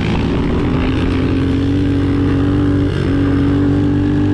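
Pit bike engine running at steady throttle under a rider, heard from on board with wind rush. The pitch dips briefly about three seconds in, then holds a little higher.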